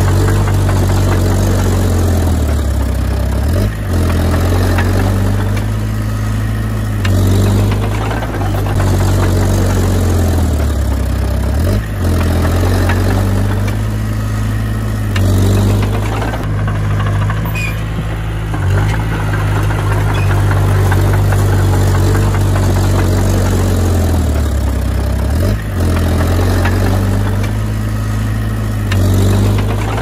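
Komatsu D20P bulldozer's diesel engine running steadily, close and loud. Its pitch sags briefly three times as it lugs under load, and a few short knocks come through.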